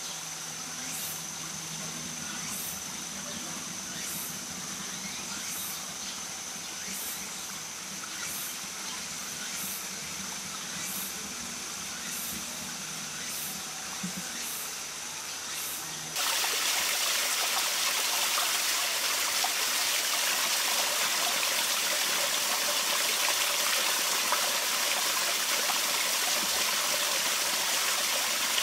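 Faint steady ambience with a thin high whine and a short high-pitched pulse repeating about once a second. About halfway through it switches abruptly to a louder, steady rush of flowing water.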